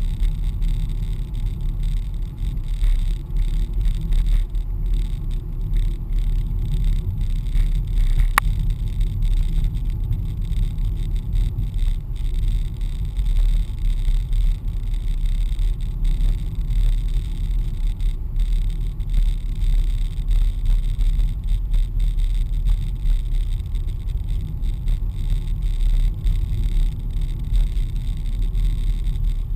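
Steady low rumble of a car driving, heard from inside the cabin: engine and tyre noise, with one sharp click about eight seconds in.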